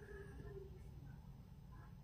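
Near silence: faint room tone with a steady low hum and a small click at the start.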